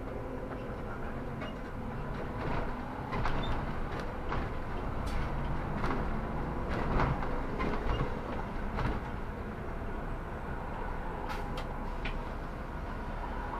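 Solaris Urbino 18 articulated city bus running: a steady low rumble with scattered rattles and knocks.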